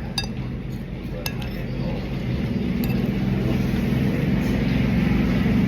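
A vehicle engine running steadily, growing louder toward the end, with three sharp clinks of cutlery against a plate.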